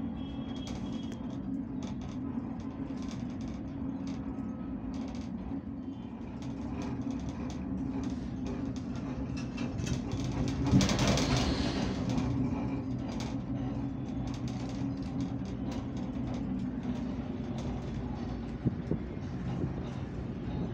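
Auto-rickshaw engine running steadily with road and traffic noise. The noise swells louder for a second or two about halfway through.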